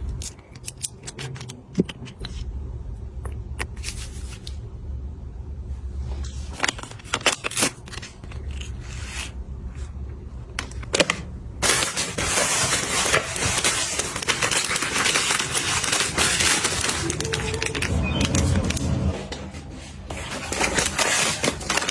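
Cosmetic items and containers being handled: scattered clicks and taps as things are picked up and set down. About halfway through, a long stretch of rustling and rubbing takes over. A low hum runs underneath.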